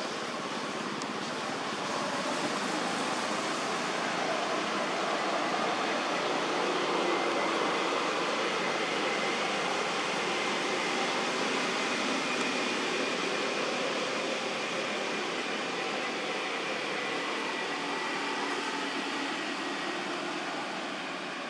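Steady background noise, an even hiss with a few faint high steady tones, swelling slightly in the middle.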